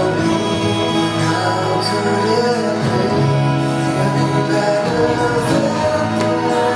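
A recorded song plays: a singer over steady instrumental backing, used as the soundtrack for a mime.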